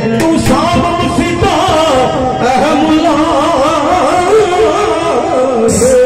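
Punjabi devotional song performed live: a male voice sings a long, wavering melody without clear words into a microphone over electronic keyboard accompaniment.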